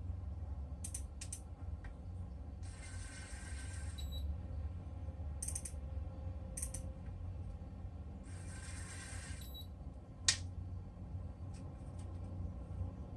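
Daiwa Seaborg 800MJ Megatwin electric fishing reel being worked by hand: several sharp clicks, and two whirring spells of about a second and a half each from the reel's mechanism, the reel now powered by its new battery.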